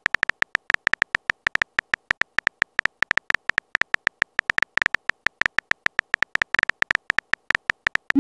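Phone keyboard typing sound effect: a rapid, uneven run of short clicks, about ten a second, as a message is typed out. It ends in a short rising swoosh as the message is sent.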